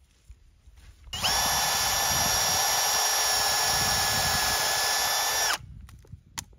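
Milwaukee cordless hammer drill/driver boring a pilot hole through a 2x4 block into a wooden post. The motor starts about a second in with a steady high whine, runs about four seconds and stops suddenly, followed by a few light clicks.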